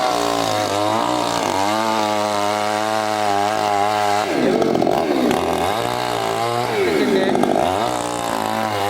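Chainsaw engine running hard, held at high revs for a couple of seconds, then its pitch dipping and climbing back three times.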